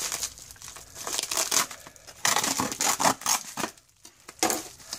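Plastic poly mailer crinkling in several bursts as it is handled and opened.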